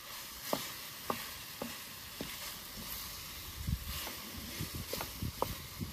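Chicken and peppers sizzling in a frying pan, with a spatula knocking and scraping against the pan as the food is stirred, about two knocks a second at first, then irregular.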